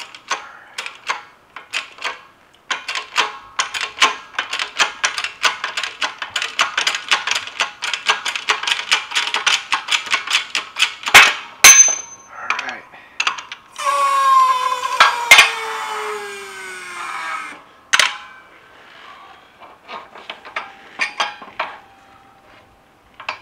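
Hand-pumped 20-ton hydraulic shop press worked in a rapid run of clicks as it forces the rear output bearing off a T50 transmission shaft. About eleven seconds in come two sharp, loud bangs as the bearing lets go, one leaving a brief high ring. Then a few seconds of metallic ringing that falls in pitch, and clinks of steel parts being handled.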